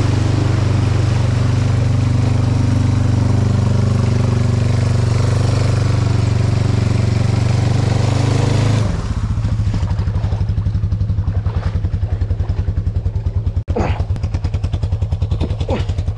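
Quad bike (ATV) engine held at steady revs under load while pushing through deep water on a flooded track, with a heavy rush of churned water. About nine seconds in the water noise stops and the engine drops back to a low, evenly pulsing putter.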